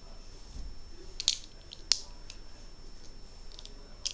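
Plastic Lego bricks clicking as pieces are handled and pressed together: scattered light clicks, with a sharper click about two seconds in.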